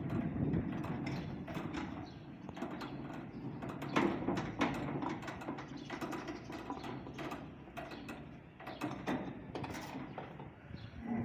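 Corrugated sheet-steel sliding gate rumbling and rattling as it rolls along its ground track, with scattered metal clicks and knocks as the latch bolt is worked.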